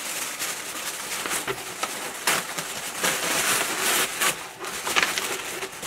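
Tissue paper and packing paper rustling and crinkling as hands dig through a cardboard box, with many small sharp crackles throughout.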